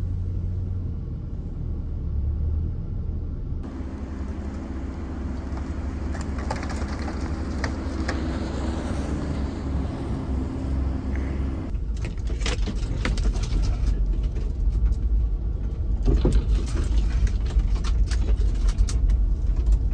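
Jeep engine running as it drives slowly over a snowy off-road trail, a steady low rumble throughout. From about twelve seconds in, frequent knocks and rattles join it and the sound grows louder near the end.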